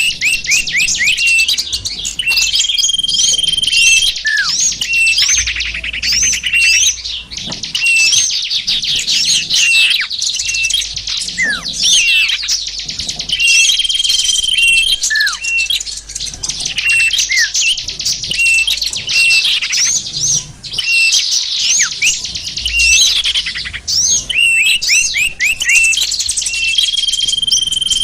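Dense, continuous chirping and trilling of many small songbirds, with quick downward-sweeping notes and a long steady whistle that comes back three times. It is a bird-lure (pikat) recording that mixes the calls of several small bird species to draw wild birds in.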